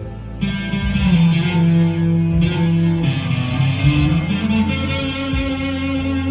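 Electric guitar (Squier Deluxe Stratocaster with Duncan Designed pickups) played through overdrive, with held lead notes and a pitch bend about four seconds in, over a backing track.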